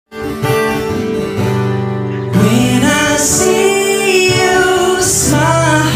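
A man singing an Indonesian pop ballad to his own acoustic guitar; the guitar alone for the first two seconds, then the voice comes in and carries on over it.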